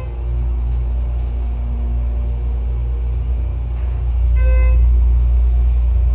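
Elevator car travelling upward with a steady low rumble. A short electronic beep sounds about four and a half seconds in as the car reaches a floor.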